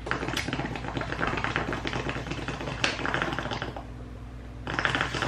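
Water bubbling in an acrylic gas-mask bong as smoke is drawn through it: a rapid crackling gurgle that stops a little before four seconds in and starts again near the end.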